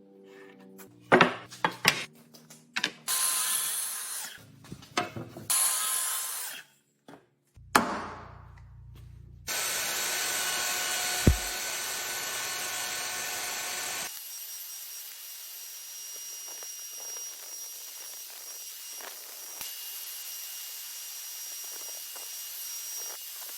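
Woodworking tool sounds in quick succession: sharp knocks and taps, two short bursts of sawing, then a power tool running steadily, louder at first and quieter for the last half with faint ticks over it.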